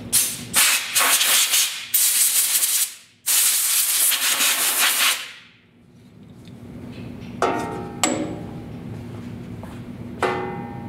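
Compressed-air blow gun blowing dust out of a band saw's wheel housing: several long hissing bursts over about five seconds, broken once about three seconds in. Then three short knocks with a brief ring as the gun and tools are handled.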